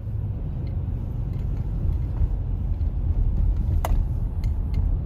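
Steady low rumble of a car driving on a city street, heard from inside the cabin, with a sharp click about four seconds in.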